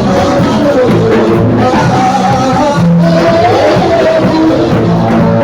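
Loud, continuous worship music: singing voices over sustained instrumental accompaniment.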